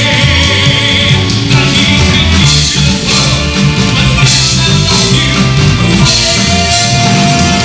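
Live rock band playing loudly with a male singer on lead vocals, drums and bass under the voice.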